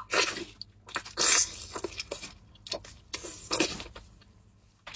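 A person chewing and biting mouthfuls of lamb head meat close to the microphone, in irregular bursts with the loudest about a second in.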